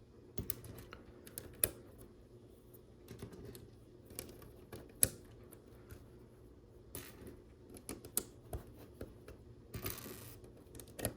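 Small plastic LEGO bricks clicking and tapping as they are handled and pressed onto studs: irregular sharp clicks, one louder snap about halfway through, and a brief rattle of pieces being sorted near the end.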